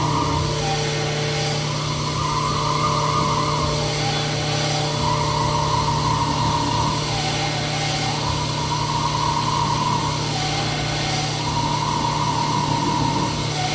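Sunnen SV-10 honing machine running, its diamond hone cutting in an engine block's cylinder bore. A steady motor hum lies under a higher grinding sound that swells and fades about every three seconds.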